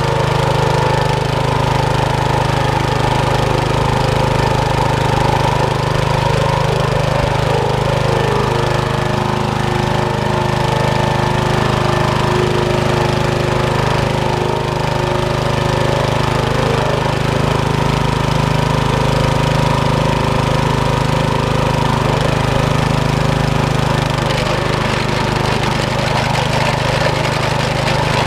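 Small petrol engine of a Kutaisi walk-behind tractor running steadily while it drives a sickle-bar mower cutting grass.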